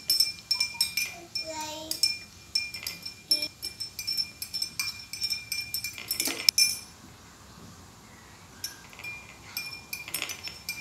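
Metal spoon stirring in a glass tumbler of lemon water, dissolving the sugar: rapid ringing clinks against the glass for about seven seconds, a short lull, then a few more clinks near the end.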